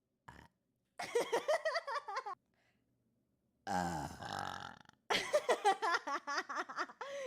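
A young woman burping: one long burp of about a second and a half, starting about three and a half seconds in, between two shorter stretches of her voice.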